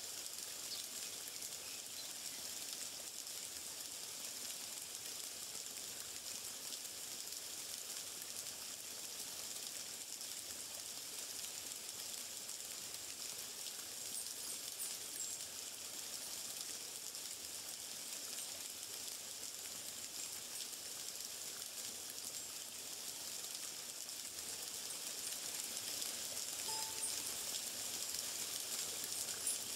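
Steady high-pitched hiss of an outdoor nature ambience, with one short faint chirp near the end.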